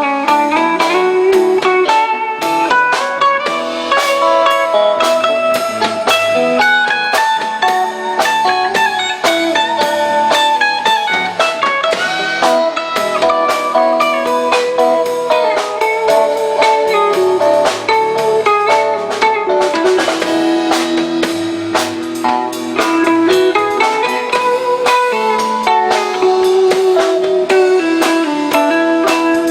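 Live rock band playing an instrumental passage: a guitar melody line over a steady drum-kit beat.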